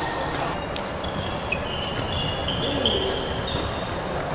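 Badminton rally: sports shoes squeaking again and again on a wooden court floor, with a couple of sharp racket strikes on the shuttlecock.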